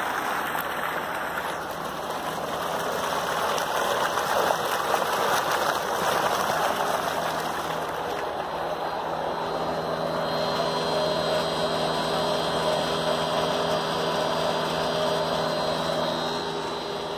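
Water from a solar tube well's discharge pipe pouring into a brick tank, a steady rush. From about ten seconds in, a steady machine hum of several tones runs under it.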